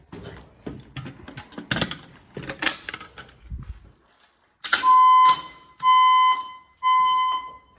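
Fire alarm voice-evacuation speaker sounding three steady beeps of the temporal-three evacuation tone, starting a little over halfway through. Scattered quieter clicks and knocks come before the beeps.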